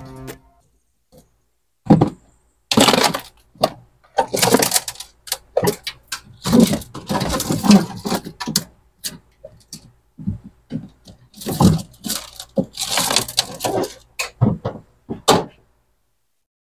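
Rustling plastic bags and knocks and clatter of things being moved and put into a refrigerator, in irregular bursts from about two seconds in until near the end.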